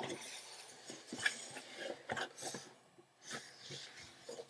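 Cardboard shipping box flaps being folded open and a sheet of paper handled: a series of short rustles, scrapes and light knocks.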